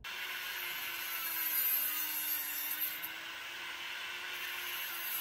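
Handheld rotary tool with a thin cut-off wheel running at high speed and cutting a metal rod held in a vise: a steady high grinding hiss over a motor hum whose pitch wavers slightly.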